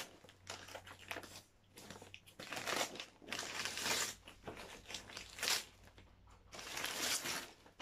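Gift-wrapping paper rustling and crinkling in several short bursts as a wrapped present is picked up and handled.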